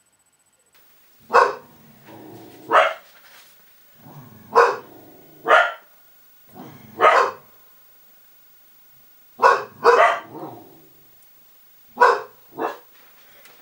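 A dog barking: about nine short, sharp barks with uneven gaps, several coming in quick pairs.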